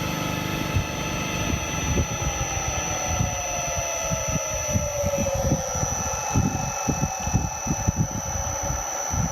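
Electric motor on a variable frequency drive running with a steady high whine, then a whine that falls in pitch from about two seconds in to about five as the motor slows after being stopped, over an uneven low rumble.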